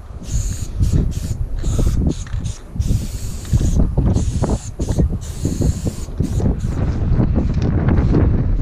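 Aerosol spray-paint can hissing in short bursts of about half a second, several times, over a heavy low rumble of wind on the microphone.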